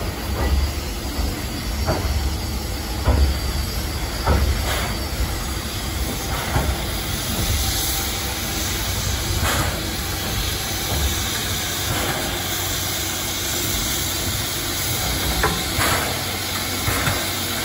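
The 1941 Hitachi-built C11 207 tank steam locomotive hissing steam as it creeps onto the turntable, with occasional sharp knocks over the steady hiss.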